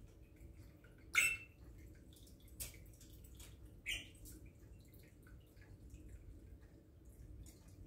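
African grey parrot making a few short clicks and chirps, the loudest about a second in and another near the middle.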